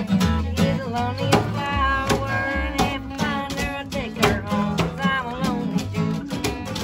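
Live acoustic folk song: two acoustic guitars strummed and picked in a steady rhythm, with a singer's voice carrying the melody over them.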